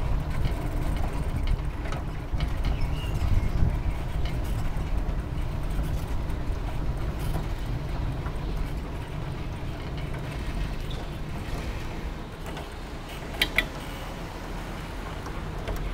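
Steady low rumble and rattle of a moving bicycle on the road, with wind on the microphone, easing a little after about twelve seconds. About thirteen seconds in come two short, sharp high-pitched sounds.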